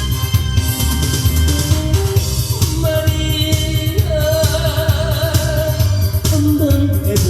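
Loud trot-style song accompaniment with a steady beat and heavy bass under a sustained melody line that wavers with vibrato through the middle and drops near the end.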